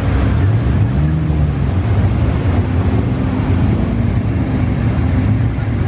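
Sports-car engines running at low speed as the cars roll through a carpark: a Nissan GT-R R35's twin-turbo V6 moving off, then a Maserati GranTurismo's V8 pulling forward. The engine note is a steady low rumble that swells and eases a couple of times.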